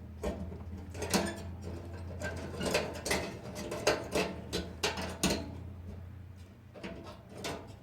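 Scattered sharp clicks and light metallic knocks as wire connectors are pulled off the heating-element and thermostat terminals of a Kenmore dryer, with about half a dozen distinct clicks spread a second or so apart.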